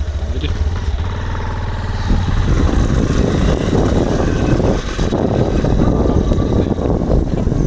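Motorcycle engine running, evenly for about the first two seconds, then louder and rougher.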